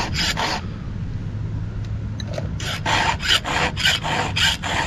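A 4 mm round file rasping freehand across the cutter teeth of a 3/8-pitch chainsaw chain in quick, even strokes, about four to five a second. The strokes stop soon after the start and resume about two and a half seconds in.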